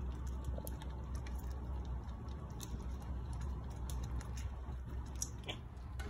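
Meatballs and thick gravy simmering in a cast-iron skillet, with scattered small pops and the occasional scrape of a utensil, over a steady low hum.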